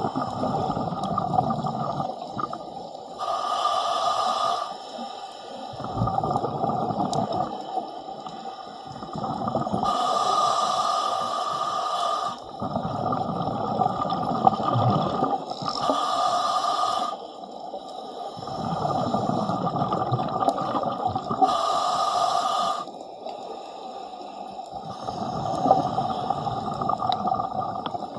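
A diver breathing through a scuba regulator underwater: a short hiss on each inhalation alternates with a longer burble of exhaled bubbles, about one breath every six seconds.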